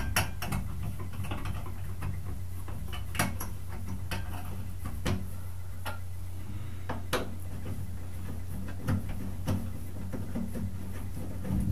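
Scattered light metallic clicks and taps, irregularly spaced about a second apart, as long screws are driven by hand to fasten the faucet trim back on, over a steady low hum.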